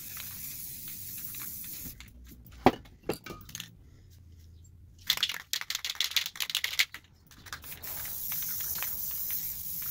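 Aerosol spray paint can hissing in a steady stream for about two seconds, then a sharp clink and a run of clicks and rattles as cans are handled, then the hiss of spraying again for the last couple of seconds.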